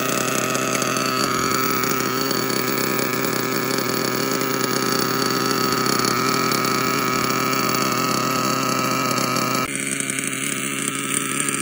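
Novarossi Bonito 21-size seven-port nitro engine idling steadily and very rich during break-in, still running cool. About ten seconds in its sound changes abruptly and becomes slightly quieter, then runs on steadily.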